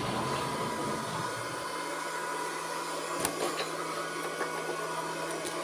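Robot vacuum cleaner running steadily: its fan and brush motors make an even hiss with a steady whine, and there is a short click about three seconds in.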